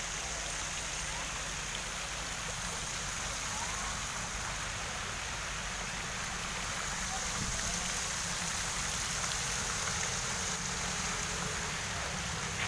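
Water from a tiered fountain splashing down into its basin: a steady rushing hiss that swells slightly a little past the middle.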